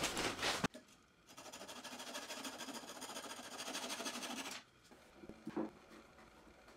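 Hand pull saw cutting through a wooden dowel to trim it flush, a steady rasp of the teeth in wood for about three seconds that then stops, with a soft knock near the end.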